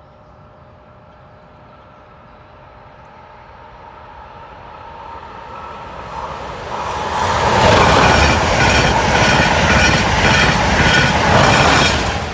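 Amtrak Acela Express trainset approaching and passing at high speed: its rumble builds gradually from faint and turns loud about seven seconds in. The wheels then clatter over the rail joints in a quick, even rhythm as the cars go by.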